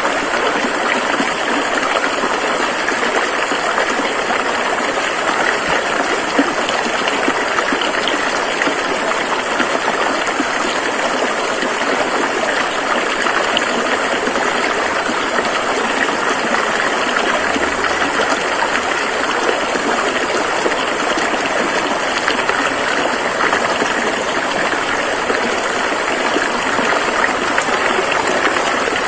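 Rushing river water flowing over rocks: a steady, even rush of water.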